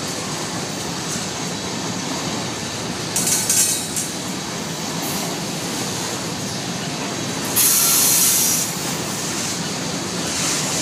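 Two freight trains rolling past on adjacent tracks, Norfolk Southern covered hopper grain cars on one side and CSX double-stack intermodal well cars on the other, giving a steady rumble of wheels on rail. Brief louder high hissing bursts come about three seconds in and again around eight seconds in, the second the loudest.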